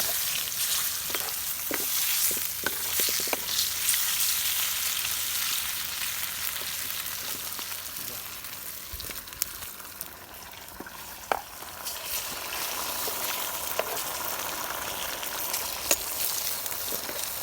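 Torresmo (pork crackling) frying in hot fat, a steady sizzle with scattered sharp pops. The sizzle eases off midway and then picks up again, with a couple of louder cracks near the end.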